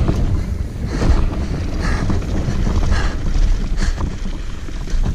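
Wind buffeting the microphone of a mountain bike's onboard camera as it rolls fast down a dirt trail, with steady tyre rumble on hardpack and a few sharp clacks from the bike over bumps.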